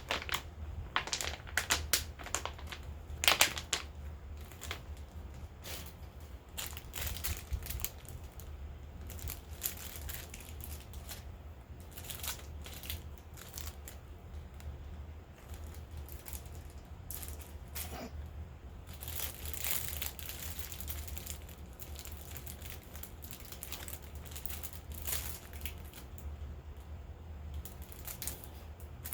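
Packaging crinkling and crackling as it is handled and unwrapped, with scattered sharp clicks and taps, over a steady low hum.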